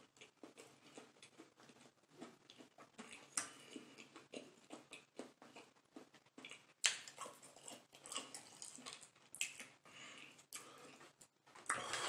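A person chewing a mouthful of chicken nugget close to the microphone: irregular soft, wet mouth clicks and smacks, with one sharper click about seven seconds in.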